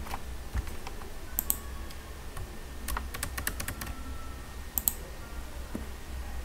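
Computer keyboard keystrokes and mouse clicks, scattered and in short clusters, over a steady low hum.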